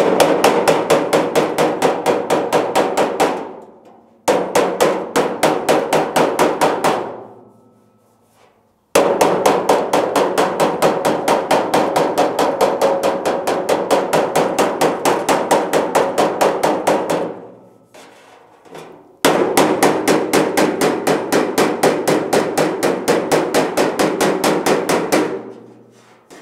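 Rapid hammering on the steel door skin of a 1967 Pontiac GTO with a body hammer and dolly, about five ringing blows a second in four long runs with short pauses between. The blows are working out a low dent left by an old slide-hammer repair.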